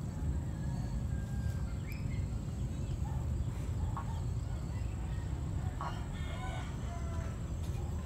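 Faint chickens calling, with a rooster crowing about six seconds in, over a steady low rumble of wind on the microphone.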